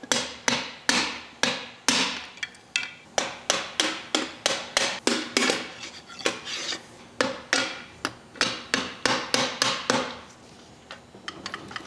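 Metal hammer rapping on a screwdriver against a connecting rod cap of a Willys 134 F-head engine, driving it loose from the crankshaft: a steady run of sharp, slightly ringing metal taps, about three a second with short pauses, stopping about ten seconds in, followed by a few light ticks.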